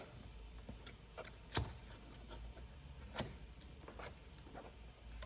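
Faint clicks and knocks of a 3D-printed PETG visor ring being slid and pressed onto a dashboard gauge bezel, the two clearest about a second and a half apart, over a low steady hum.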